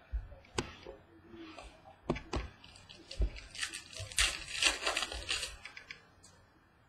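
Trading cards and their packaging being handled: a few sharp taps and clicks, then a stretch of crinkling and sliding about three and a half seconds in.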